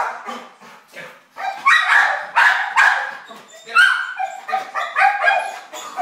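Pit bull barking over and over, about two loud barks a second in bunches with short gaps.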